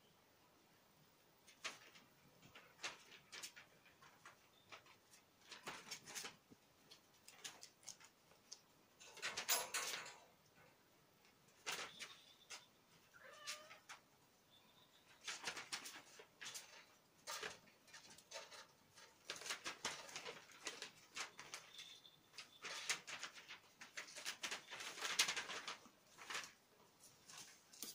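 Kittens scuffling and wrestling on a sheet and cardboard scratcher: repeated short scratchy rustles and claw clicks, with a brief mew about thirteen seconds in.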